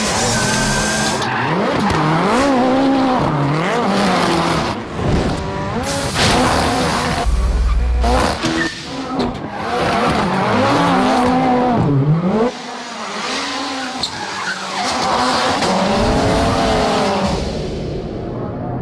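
Ford Fiesta rally car engine revving hard, its pitch sweeping up and down again and again through gear changes, while the tyres squeal and skid as the car slides through corners.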